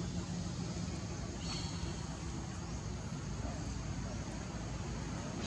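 Steady low engine rumble, as of a vehicle running.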